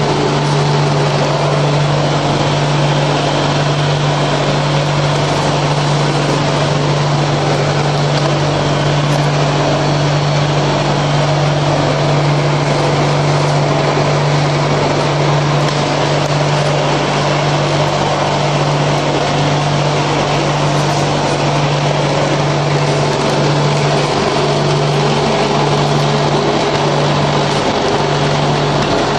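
Electric vibrating table for paver-block moulds running steadily: a loud constant hum with dense, even noise over it.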